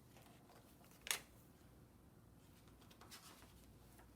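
Near silence, with a brief papery rustle about a second in and a fainter one about three seconds in: a picture-book page being turned.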